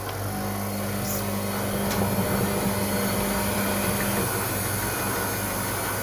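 LG WD-80155NUP front-loading washing machine running with a steady motor hum and noise, a higher steady tone fading out about four seconds in.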